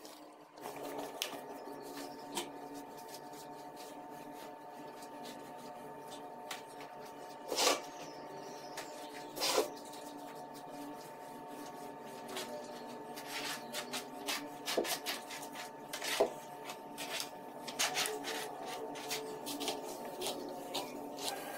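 Wet mop worked over a tiled floor: scattered scrapes, clicks and knocks of the mop and its handle, two of them louder near the middle, over a steady hum.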